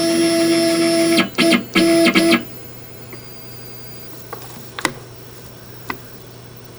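CNC router's stepper motors whining at a steady pitch as the gantry jogs, in three short moves that start and stop abruptly, then falling quiet apart from a few sharp clicks.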